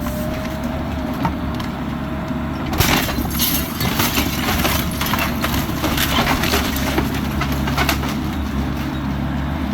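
Bobcat E85 excavator's diesel engine running steadily, with repeated cracking and crunching of a manufactured home's wooden structure being knocked in by the machine; the breaking gets busier from about three seconds in.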